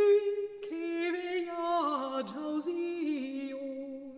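A woman singing unaccompanied in Old Occitan, a medieval troubadour melody drawn out over long held notes that step and slide between pitches. The line drops lower about two seconds in and fades at the close of the phrase.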